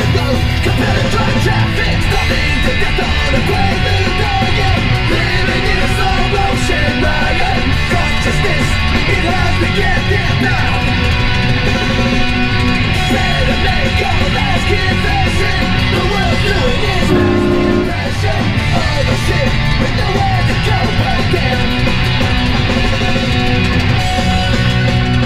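Rock music driven by guitar, playing steadily and loud.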